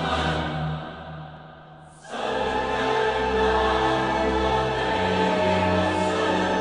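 Music with long held, choir-like chords. It fades down over the first two seconds, and a new loud passage starts abruptly about two seconds in.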